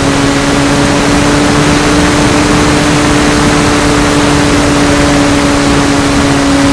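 Electric motor and propeller of a Phoenix 2000 RC glider running at a steady pitch, heard from its onboard camera under a loud rush of wind.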